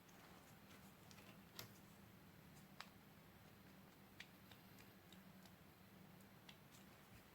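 Near silence: faint room tone with a low hum, broken by a few faint, sharp clicks and taps spaced a second or more apart.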